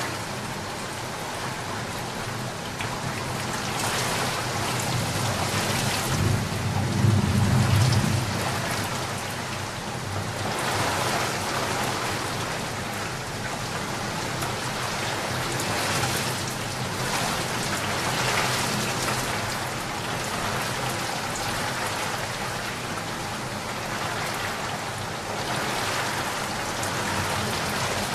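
Heavy rain falling on a flooded street, a steady hiss of drops on water, with a low rumble swelling about seven seconds in.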